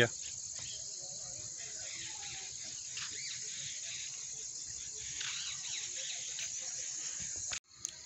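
Insects chirping in a steady, high-pitched outdoor chorus, cutting off suddenly near the end.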